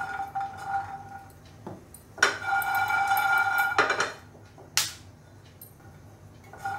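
Peanuts being dry-roasted and stirred with a silicone spatula in a nonstick kadhai: soft scraping and the nuts rattling and tapping against the pan, with a few sharp clicks. A steady ringing tone starts suddenly just past two seconds in and cuts off after about a second and a half.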